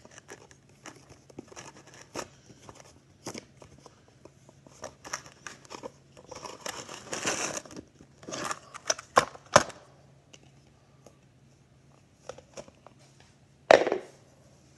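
Hard plastic toy parts being handled and fitted together: a string of clicks and knocks with scraping, a longer crinkly rustle about seven seconds in, and sharp knocks a little before ten seconds and again near the end, the last the loudest.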